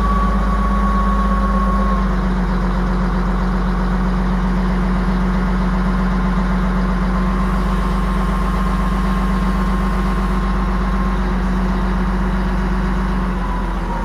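Caterpillar 972G wheel loader's diesel engine idling steadily, with a thin high whine over the engine note, while the raised bucket is lowered.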